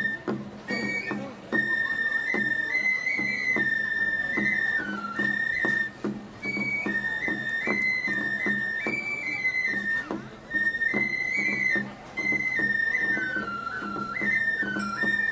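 Japanese festival music: a high transverse bamboo flute playing a melody that steps between held notes, over irregular sharp percussion strikes.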